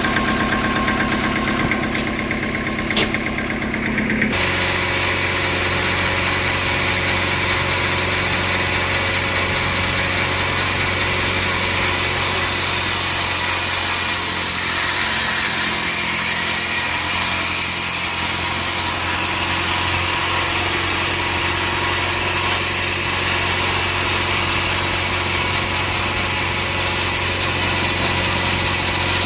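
Sawmill machinery running steadily with an engine-like hum. About four seconds in, the hum changes and a steady hiss joins it.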